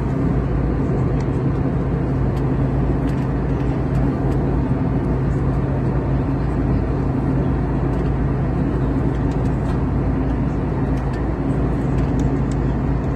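Steady cabin noise inside an airliner in flight: a constant low rumble of engines and rushing air with a steady low hum.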